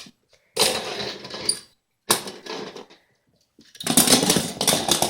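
A toy car whirring and rattling as it runs over a hard floor, in three bursts of about a second each with short silent gaps between them.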